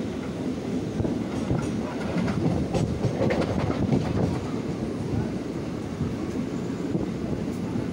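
Running noise of the Chirimiri–Rewa Express passenger train heard from inside a moving coach: a steady rumble of wheels on the rails, with a few sharper clicks in the first half.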